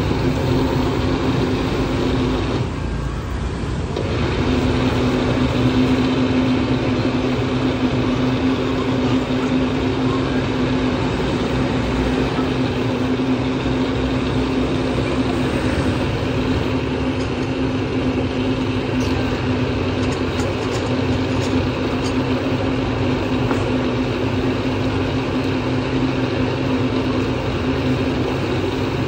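Electric countertop blender running steadily with a constant motor hum. It dips briefly about three seconds in, then picks up again. A few light clicks come later from a spoon working in the jar.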